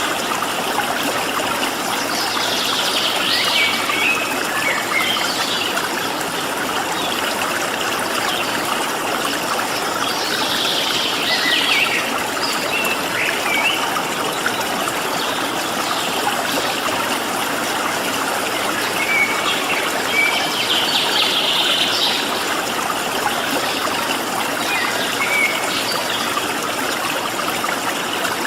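Steady rush of flowing stream water, with a small songbird singing short runs of high, quick notes several times over it.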